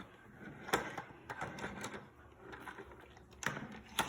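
Hard plastic parts of a toy Dyson vacuum being pushed in and twisted into place: a few sharp, scattered clicks and knocks.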